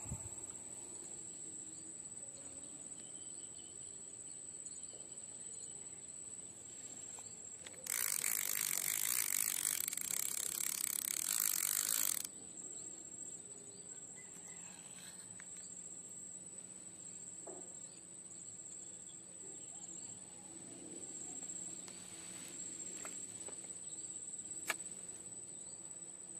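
Insects keep up a steady high-pitched whine in the waterside vegetation. About eight seconds in, a loud hiss takes over for about four seconds and cuts off suddenly, and near the end there is a single sharp click.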